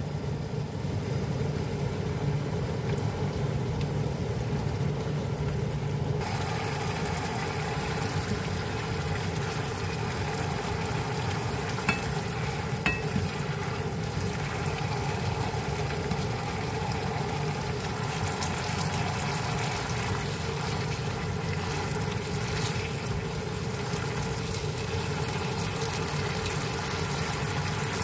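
Spaghetti and shrimp in sauce sizzling and bubbling in a frying pan while being stirred and tossed with chopsticks and a wooden spoon; the sizzle grows brighter about six seconds in, with a few light utensil taps about twelve seconds in.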